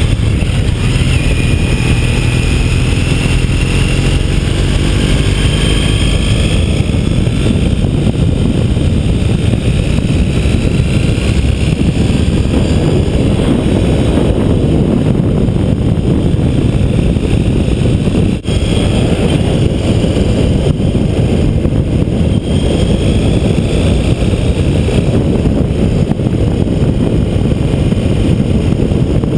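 Road vehicle travelling at speed: a steady engine and road rumble under heavy wind noise on the microphone, with faint rises and falls in engine pitch. The sound cuts out for an instant about two-thirds of the way through.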